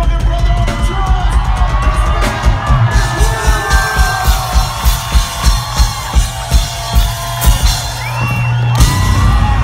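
Live band with a drum kit beating a steady kick-drum pulse about twice a second under a held low bass tone, a crowd whooping and cheering over it, and a loud crash near the end.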